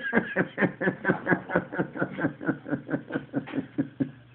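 A person's voice making a quick, even run of short vocal pulses, about four or five a second, that stops shortly before the end.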